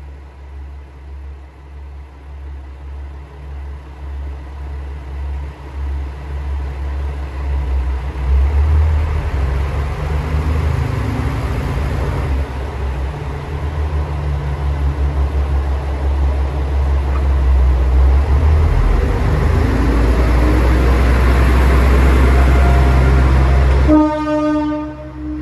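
JR Kyushu KiHa 47 and KiHa 147 diesel railcars pulling away from a platform, their diesel engines running under power and growing louder as the cars move past. One horn blast comes about a second and a half before the end.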